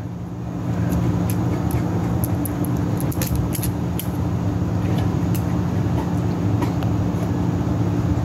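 Steady low mechanical hum, with a few faint clicks about three to four seconds in.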